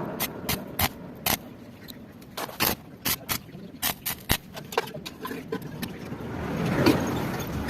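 A run of sharp, irregular clicks and knocks, with a rumbling noise that swells and fades near the end.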